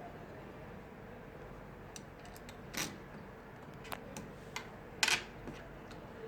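Scattered light metallic clicks and taps, the loudest about five seconds in: a short-circuit termination is being handled and fitted onto the microwave test bench in place of the matched load.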